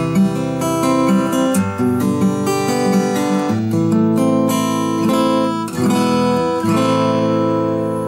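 Seagull S6 Original acoustic guitar with Elixir Nanoweb light strings, played with bare fingers and no pick: plucked notes and chords ringing, with a few chords brushed across all the strings.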